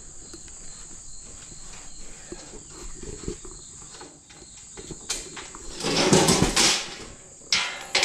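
Crickets trilling steadily, and from about five seconds in a loud scraping and knocking as the heavy metal bale chute extension is handled against the baler, loudest around six seconds, with another knock near the end.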